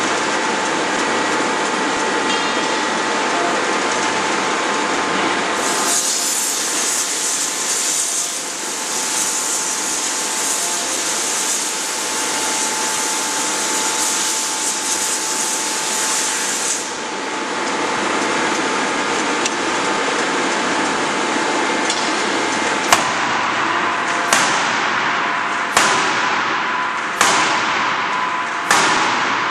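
C86-series 400 kJ hydraulic closed-die forging hammer. Its machinery runs with a steady hum, and a hiss comes in from about six seconds to about seventeen seconds. From about 23 s in, the ram strikes the hot flange blank in a steady series of blows, about one and a half seconds apart, each with a short ringing tail.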